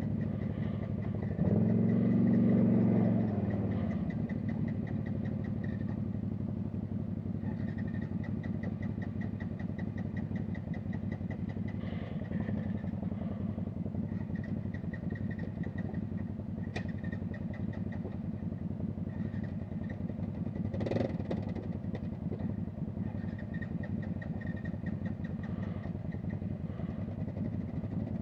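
Quad bike (ATV) engines running as the machines crawl through deep water. About a second and a half in, the revs rise and the engine grows louder, settling back to a steady run by about four seconds.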